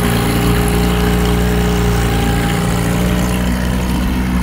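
Evinrude 6 outboard motor running steadily in a test barrel of water, its propeller churning the water; it is pumping cooling water out of the telltale again.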